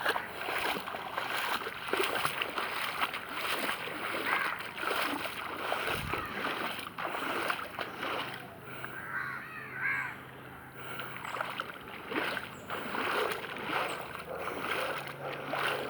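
Water splashing and sloshing irregularly as someone wades through floodwater.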